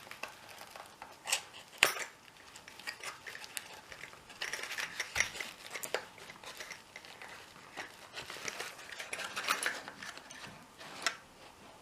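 Hands handling a large steel padlock and its packaging: scattered metal clicks and knocks with crinkling of wrapping, the sharpest knock about two seconds in.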